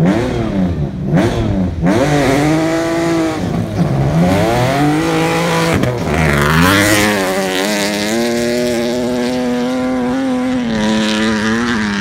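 Rally car engine blipped several times at the start line, then launching and accelerating hard past, with a rush of noise as it goes by about six seconds in, then held at high, steady revs as it pulls away.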